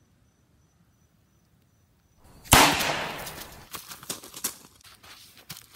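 A sudden loud bang about two and a half seconds in, its noisy tail dying away over about a second, followed by light crunching footsteps on gravel.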